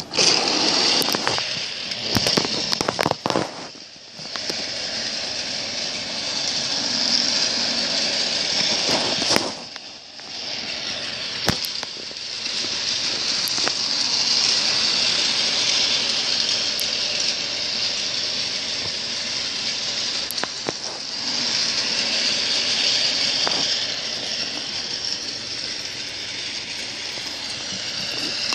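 Battery-powered toy train running on plastic track: a steady, noisy rattling whir of its small motor and wheels with scattered clicks. It starts suddenly and dips briefly twice, about four and ten seconds in.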